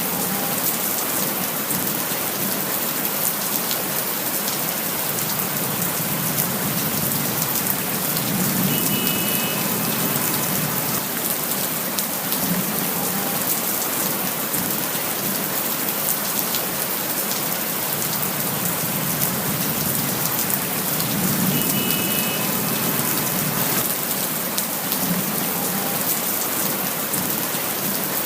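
Steady rain falling on surfaces, a dense patter with countless individual drops ticking. A low rumble swells up and fades a few times.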